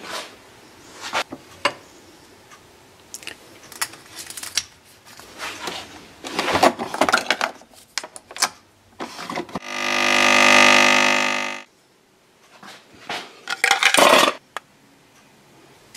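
Metal Nespresso capsules clicking and rattling as they are handled and loaded into a Nespresso coffee machine, then about two seconds of the machine's pump buzzing loudly at one steady pitch. A quick run of loud plastic clicks and rattles follows near the end.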